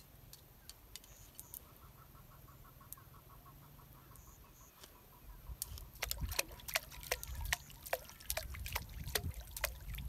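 A hooked fish thrashing at the surface of a weedy pond, making a quick series of sharp splashes. The splashing starts about five and a half seconds in and goes on to the end.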